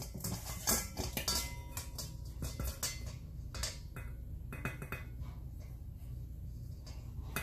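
Stainless steel bowls and a wire-mesh sieve clinking against each other as flour is poured into the sieve for sifting: a run of sharp metallic clinks in the first three seconds, then softer, scattered taps.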